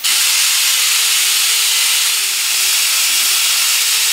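Die grinder with a small abrasive disc grinding down fresh welds on a steel front shock mount: a steady, loud hissing whine that starts abruptly, its pitch dipping slightly a few times as the disc bites into the metal.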